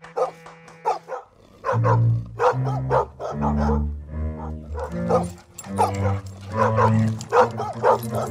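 A large dog barking repeatedly in quick succession, over background music with low held bass notes that come in about a second in.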